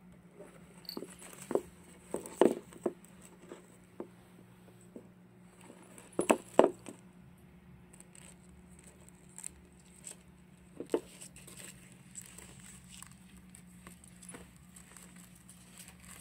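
Scattered light knocks, taps and scrapes, the loudest clusters about two seconds in and around six seconds: a cat pawing and pushing a Reeves' turtle, its hard shell and claws knocking and scraping on a cardboard scratcher and wood floor. A low steady hum runs underneath.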